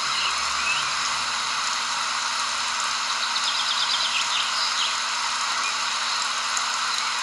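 Nature ambience: a steady hiss of running water, with birds chirping over it. A quick trill of about eight notes comes a little past three seconds in.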